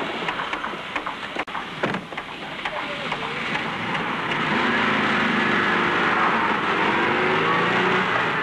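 A few sharp knocks, then a motor engine running, growing louder about three seconds in into a steady noise with a wavering low drone.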